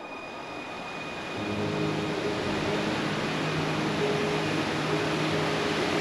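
Waterfall rushing, a steady noise of falling water that grows louder about a second and a half in.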